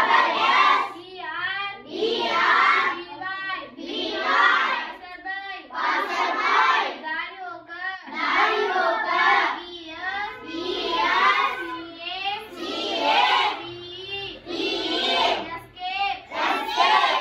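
A young girl's voice chanting aloud in a sing-song rhythm, reciting a list of English vocabulary words in short phrases of about a second each.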